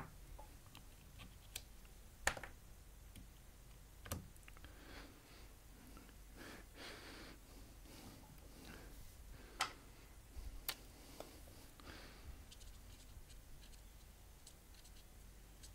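Faint handling sounds of small phone parts and a hand tool on an iPhone 5 housing: a few sharp clicks and taps scattered through, with soft rustling in between.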